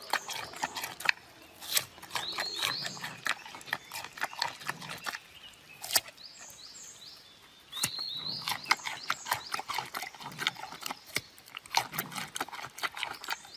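Giant panda crunching and chewing a raw carrot: a dense, irregular run of sharp crunches and chewing clicks, quieter for a few seconds in the middle.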